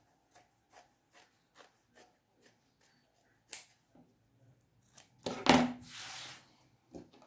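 Fabric scissors snipping through cotton fabric to trim off excess seam allowance: a series of about six short snips, roughly two a second, then a sharper click about three and a half seconds in. Near the end comes a louder knock, followed by about a second of rubbing as a hand sweeps fabric scraps across a cutting mat.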